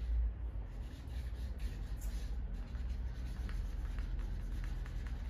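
Markers scratching and rubbing across paper in short strokes, over a steady low hum.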